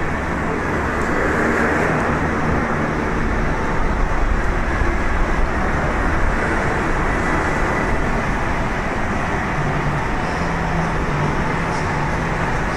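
Steady city street traffic noise: a dense, even hum of road vehicles. In the last few seconds a low engine note holds a steady pitch.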